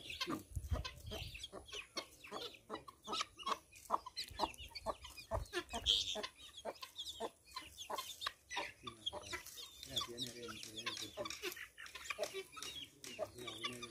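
Young guinea fowl keets, with a chicken chick among them, calling constantly in many short, quick peeps, with one louder high call about six seconds in.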